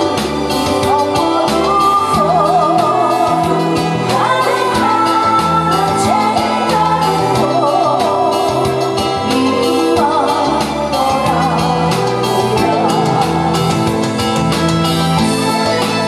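A woman singing a song into a microphone with a wavering vibrato, over electronic keyboard accompaniment with a bass line and a steady drum beat.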